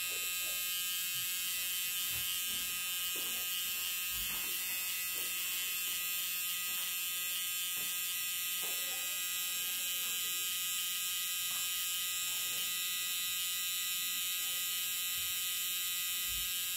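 A permanent-makeup machine pen runs with a steady, high-pitched electric buzz while it implants pigment into an eyebrow. A few faint soft ticks come through now and then.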